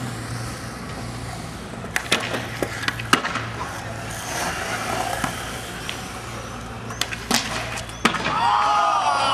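Skateboard wheels rolling on smooth concrete, with several sharp clacks of the board popping and landing about two to three seconds in and again around seven seconds. Voices call out near the end.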